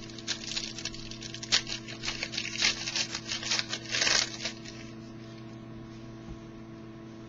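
Trading cards being handled and slid against one another: a run of quick rustles and swishes for about four seconds, then stopping. A steady electrical hum runs underneath.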